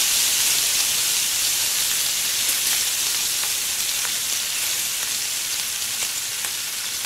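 A piece of katla fish, marinated in turmeric and salt, frying in hot oil in a well-heated kadai: a loud, steady sizzle that slowly fades, with a few small crackles.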